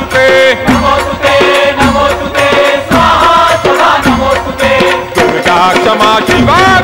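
Devotional Hindu chant music, a gajar to the goddess, with a bending melody line over rhythmic percussion.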